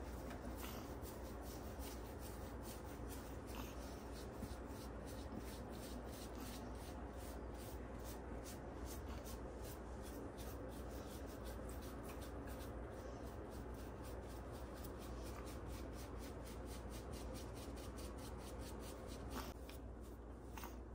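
Bamboo toothbrush bristles scrubbing shampoo lather through a chihuahua's wet fur, a steady run of quick, even scratching strokes.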